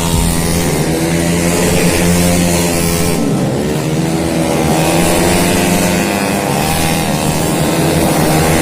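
Several tuned automatic racing scooters with their engines at full throttle. Their pitch rises and falls as they speed up and pass.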